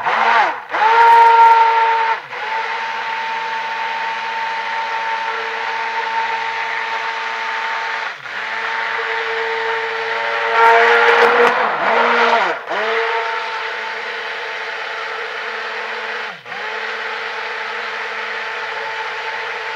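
Stick blender running in a crock pot of soap oils, blending the lye solution into them for hot-process soap. Its motor gives a steady whine that is cut off and restarted about four times, the pitch sagging and climbing back each time. It runs louder and churns harder for a couple of seconds midway.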